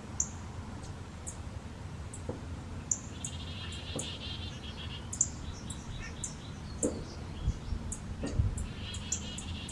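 Small songbirds chirping outdoors: many short, high-pitched chirps scattered throughout, with a fast buzzy trill twice, once about three seconds in and again near the end.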